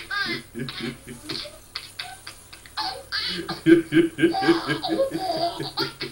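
A man and a baby laughing in quick repeated pulses, played through a TV speaker, getting louder about four seconds in.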